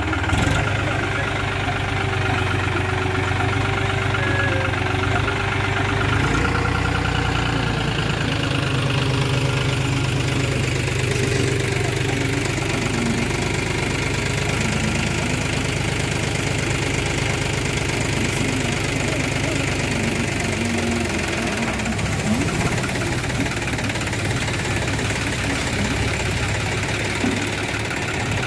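John Deere 5105 tractor's three-cylinder diesel engine running steadily while it powers the hydraulics that tip its loaded trailer. Its note shifts slightly about six seconds in.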